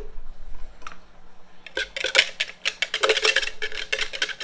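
Chopped carrots being shaken and tapped out of an upturned plastic container onto shredded cabbage: a single light click, then from about two seconds in a fast clatter of sharp plastic taps.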